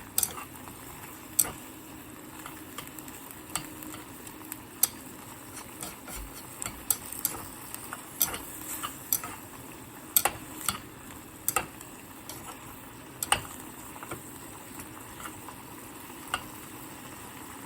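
A pot of pork braising in a thickened sugar and fish-sauce glaze, simmering with a steady sizzle and irregular sharp pops, about one or two a second, as the sauce reduces.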